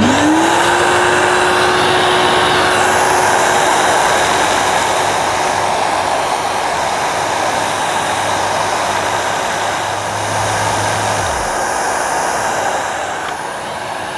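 Numatic Henry Hound vacuum cleaner switched on with its electric power nozzle: it starts abruptly and runs steadily, a rising whine settling within a second to a steady tone over the motor's noise. A low hum drops out about eleven seconds in. It sounds as it should, working normally.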